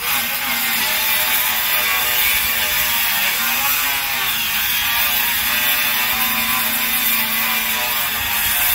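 A motor runs continuously at a steady pitch, which wavers slightly about halfway through.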